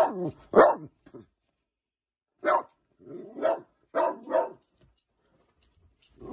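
A dog barking at wild turkeys outside: a run of about eight short barks, some in quick pairs, the loudest near the start, then falling silent after about four and a half seconds.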